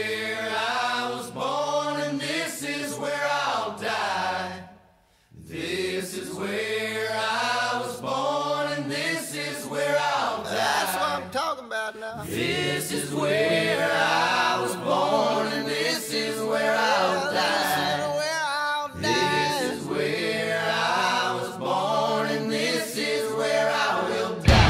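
Background song with layered singing voices in vocal harmony, breaking off briefly about five seconds in.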